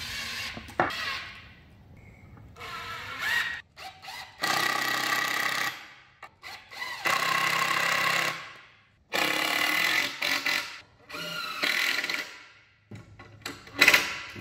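Cordless drill/driver driving screws into 2x4 lumber: four runs of about a second and a half each with a steady motor whine, and a short one near the end, with light knocks of wood and tool between them.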